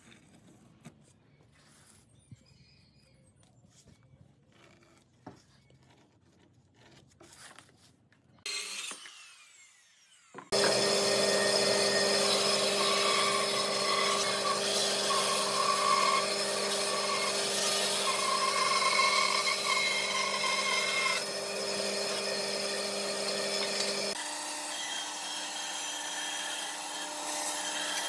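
Band saw cutting a thick wooden plank along a marked curve: a loud, steady machine sound with a steady hum and a sawing hiss, which starts suddenly about ten seconds in and drops in level and pitch a few seconds before the end. Before it there is faint scratching of a marker tracing a cardboard template on the wood.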